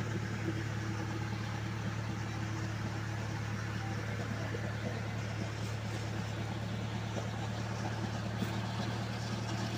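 Backhoe's diesel engine running steadily with a constant low hum.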